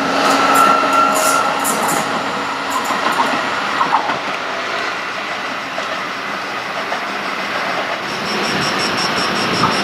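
Train running on the track at a railway station: steady loud rolling noise of wheels on rail, with a few short clicks around three and four seconds in. A rapid high pulsing tone comes in about eight seconds in.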